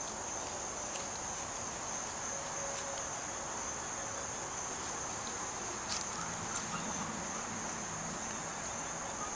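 Steady high-pitched drone of an insect chorus in the grass, with one light click about six seconds in.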